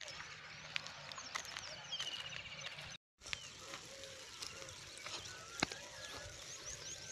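Several small birds chirping and trilling, many short high calls overlapping. The sound drops out completely for a moment about three seconds in, and there is one sharp knock near the end.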